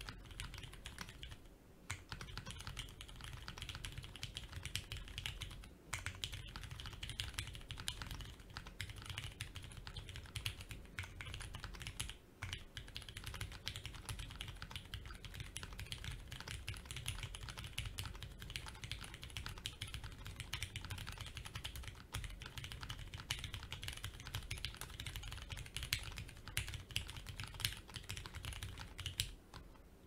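Continuous fast typing on a mechanical keyboard: a dense stream of key clicks, broken by a few short pauses, stopping shortly before the end.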